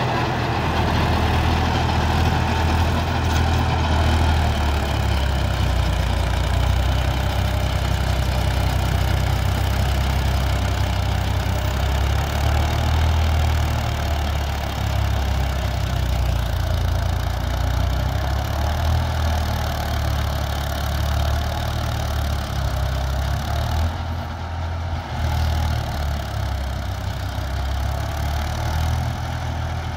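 Massey Ferguson 246 4WD tractor's diesel engine running steadily under load as it drives a rotavator through the soil, growing slightly fainter in the later part as it moves away.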